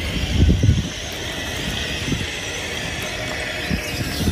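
A 1/14-scale RC road train rolling past on asphalt, its many small trailer wheels giving a steady rolling hiss. A few low thumps, the loudest about half a second in.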